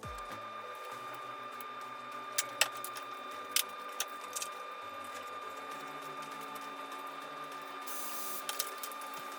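Background music with a low bass line that steps from note to note, and a few sharp clicks between about two and four and a half seconds in.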